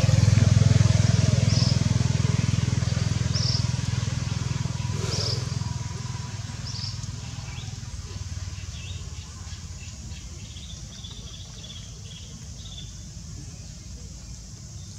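A vehicle engine's low rumble, loudest at the start and fading away over about the first six seconds. Short high chirps come every second or two over the same stretch, and fainter chirping follows later.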